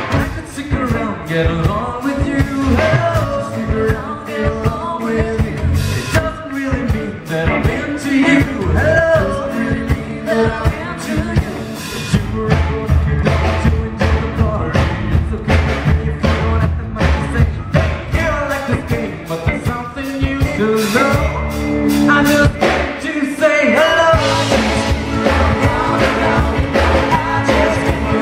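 Live rockabilly band playing a song: a singer over upright bass, electric guitar and drums, with a steady beat.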